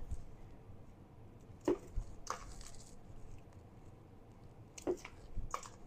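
A few faint, short crackles of dried chiles being handled and broken, with quiet room tone between them.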